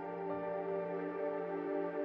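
Background music: soft ambient new-age music of long held tones.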